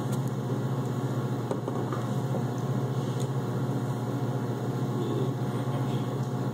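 Steady low hum over an even background noise, with a few faint clicks.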